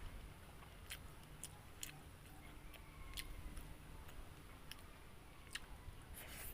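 A person eating close to the microphone: faint chewing with scattered, irregular sharp clicks.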